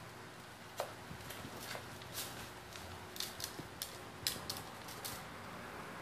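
Black-capped lory rummaging in a clear plastic tub of rice: about ten short, scratchy clicks and rustles of rice grains and claws against the plastic, irregularly spaced and more frequent in the second half.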